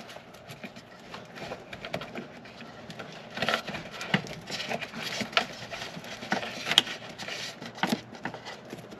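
Irregular rustling and scattered sharp clicks of wire harnesses being pushed by hand into a split rubber hose, with one louder click a little before the end.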